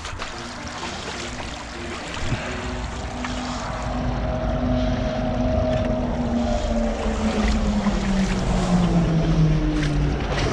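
Shallow stream water rushing and splashing around a wader's legs as he steps through a rocky creek, growing louder after a couple of seconds. A faint low hum slowly falls in pitch through the second half.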